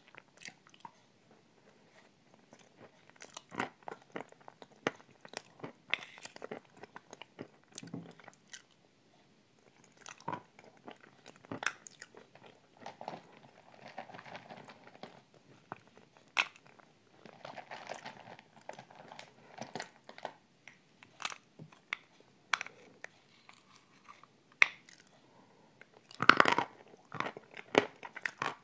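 Close-up chewing and crunching as a person eats spoonfuls of a cream dessert topped with white chunks, with many short sharp crunches and clicks between softer mouth sounds. A louder cluster of crunches comes near the end.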